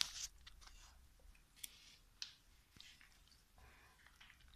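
Faint, sparse wet squelches and soft clicks of a bare hand kneading raw chicken pieces with spices and paste on a ceramic plate.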